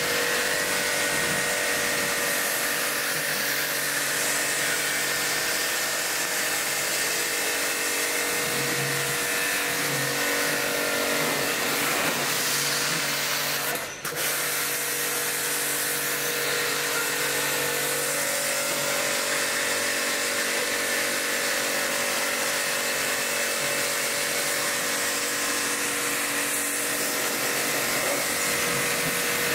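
Electric high-pressure washer running steadily with a motor whine, its jet hissing as it sprays water and snow foam onto a car's body. The sound dips briefly about halfway through.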